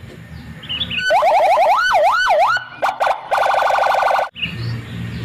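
Toy police car's electronic siren: a run of rising sweeps, quick at first and then slower, followed by a fast pulsing warble, starting about a second in and cutting off abruptly just after four seconds.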